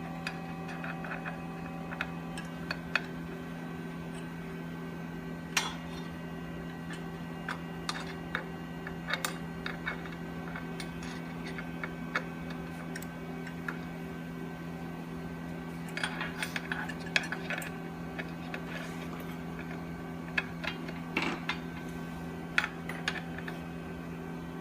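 Scattered light metal clicks and clinks of a wrench and nuts being worked onto steel tie rods, busier in two short spells in the second half, over a steady low hum.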